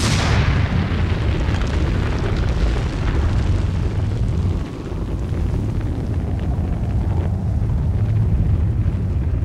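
Mount Pinatubo erupting: a sudden loud blast, then a continuous deep rumble.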